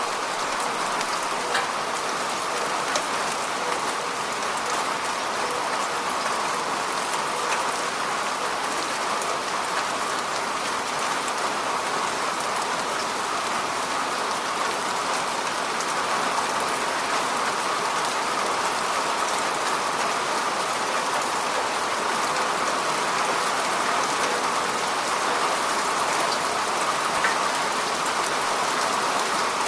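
Steady rain, a dense even patter with scattered sharper drop ticks.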